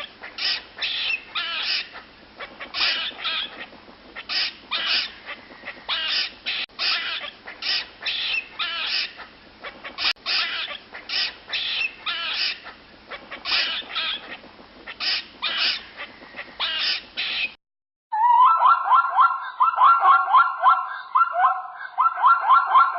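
Animal calls: short calls repeated a couple of times a second for most of the time, then, after a sudden cut, a different animal's rapid calls repeating in runs.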